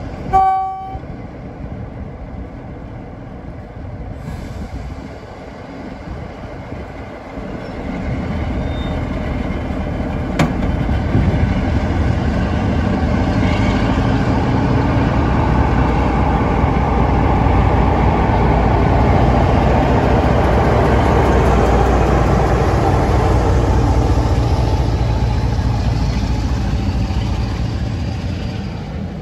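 British Rail Class 47 diesel locomotive, with its Sulzer twin-bank V12 engine: a blast on its two-tone horn at the start, then the engine powering up about seven seconds in as the train pulls away. The engine and running gear grow loud as the locomotive passes close by, and ease off near the end as the coaches roll past.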